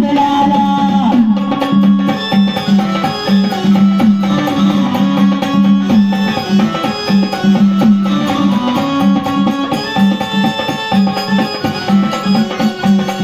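Instrumental passage of Marathi gondhal folk-devotional music: hand drums keep a steady rhythm under a melody instrument playing long, held notes.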